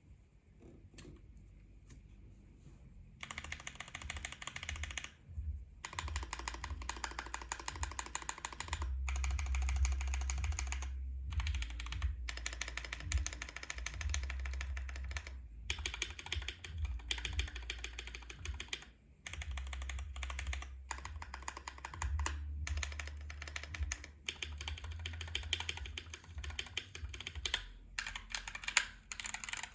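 Fast typing on a KBD67 Lite aluminium mechanical keyboard with unlubed Neapolitan Ice Cream switches, an FR4 plate and GMK keycaps: a dense clatter of keystrokes broken by short pauses. The typing starts about three seconds in.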